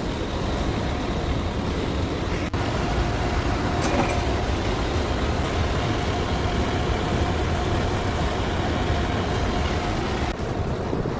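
Steady drone of a large exhaust fan running, with a faint steady hum tone over a deep rumble.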